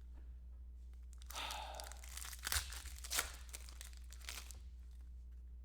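A trading card pack's wrapper being torn open and crinkled by hand: a rustling tear about a second in, then a couple of sharp crackles and a smaller rustle.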